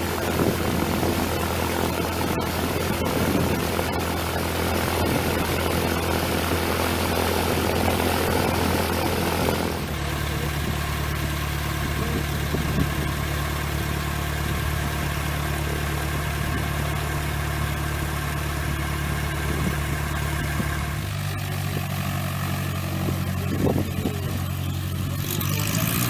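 Cessna 152's Lycoming O-235 four-cylinder engine and propeller running at low power on the ground, a steady drone whose pitch shifts abruptly about ten seconds in and again about 21 seconds in.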